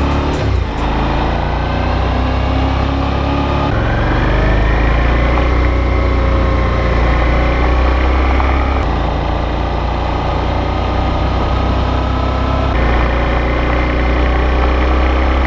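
Suzuki V-Strom DL650 V-twin engine running, its pitch rising slightly over the first few seconds, in spliced stretches that change abruptly about four, nine and thirteen seconds in.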